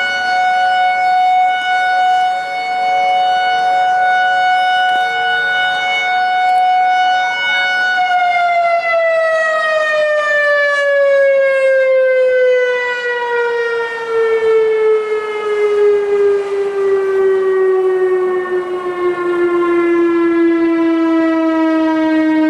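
Whelen WPS-4004 electronic outdoor warning siren sounding its steady alert tone, loud and unwavering. About eight seconds in, the pitch begins to slide slowly and smoothly downward, winding down.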